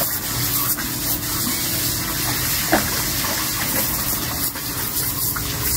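Steady spray of water from a garden hose splashing onto a dog and into a plastic paddling pool, with one brief louder sound a little under three seconds in.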